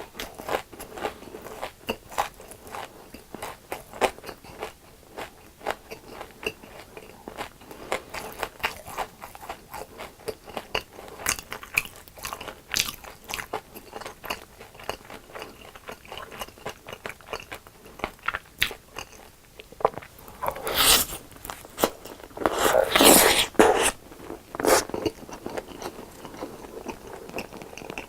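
Close-miked crunchy chewing of fried food: a dense run of crisp bites and crunches, with a few louder, longer crunches about three-quarters of the way through.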